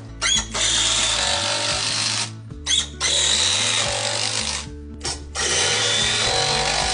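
Power drill running in three long runs of about two seconds each, with short blips of the trigger between them, as it works on the deck's timber frame.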